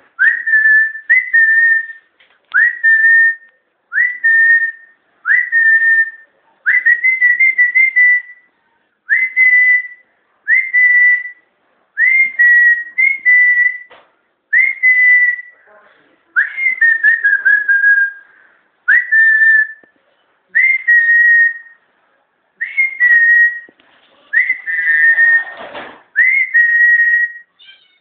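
A person whistling short high notes over and over, about one every one and a half seconds, each sweeping up quickly and then held briefly. A short scuffing noise comes in about three-quarters of the way through.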